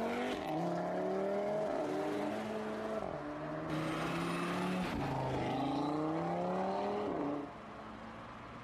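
Audi RS3's turbocharged 2.5-litre five-cylinder engine accelerating hard. Its pitch climbs, drops at each upshift and climbs again, several times. It gets quieter near the end as the car pulls away.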